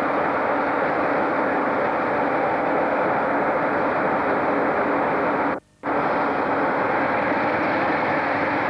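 Class 47 diesel locomotive's Sulzer twelve-cylinder engine idling with a steady drone while the locomotive stands at the platform. The sound cuts out completely for a moment about five and a half seconds in.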